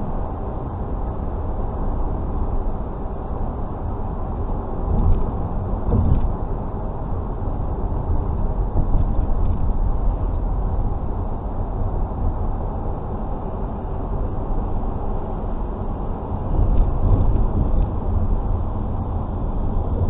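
Steady low rumble of a car driving along a road: tyre and engine noise from a moving vehicle. It swells briefly twice about five and six seconds in, and again for a couple of seconds near the end.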